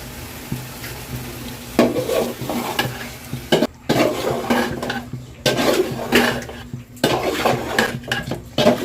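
A metal utensil stirring and scraping in a cooking pot, with irregular clatters against the pot that come in spells with short pauses, over a steady low hum.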